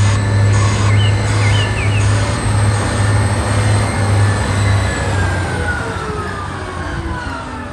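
Diesel engine of a large rigid mining dump truck driving past: a loud, steady low drone with a higher whine over it. From about five seconds in the whine falls slowly in pitch as the truck moves away.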